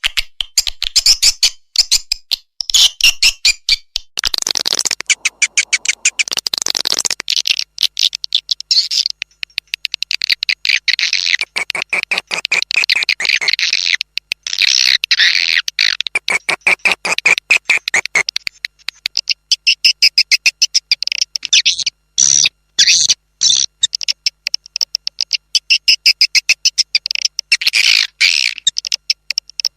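Edible-nest swiftlet call audio: rapid trains of high-pitched twittering chirps and clicks, with a few short breaks. It is a swiftlet lure call (suara panggil), played to draw swiftlets into a nesting house.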